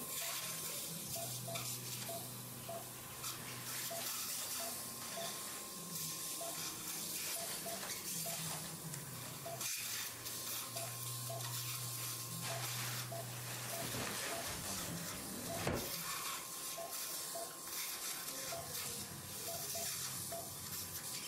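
Surgical suction tip hissing steadily as it draws blood and fluid from the open joint. Faint regular short beeps and a low hum run underneath.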